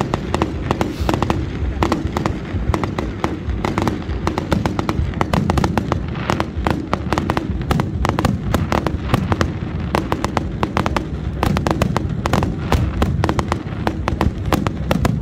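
Aerial fireworks display going off in a continuous barrage: many sharp bangs and cracks in quick succession over a steady low rumble.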